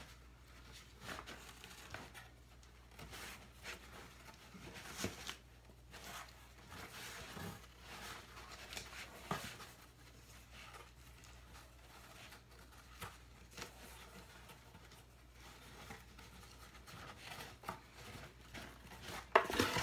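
Faint handling sounds of ribbon being pulled and tied in knots inside a cardboard box: irregular soft rustles, with light scrapes and taps against the cardboard.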